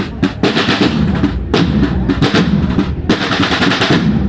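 Snare drums of a Spanish cornet-and-drum marching band playing rolls over bass drum beats, the rolls breaking off briefly twice, about every second and a half.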